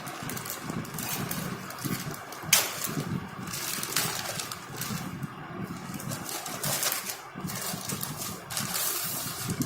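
Rustling and handling of the delivery packaging as it is opened, with a few sharp clicks and knocks over a low steady background rumble.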